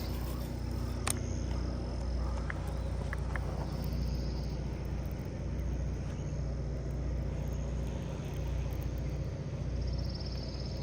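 Outdoor ambience: a steady low hum with insects buzzing in a high band that swells twice, and a single sharp click about a second in.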